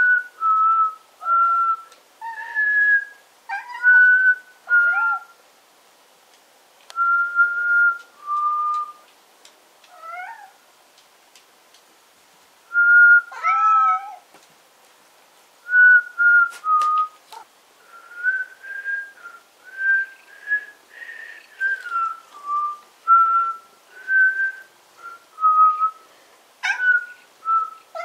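A person whistling a string of short, clear notes, with a cat meowing back several times in between, answering the whistle; the meows come mostly in the first half.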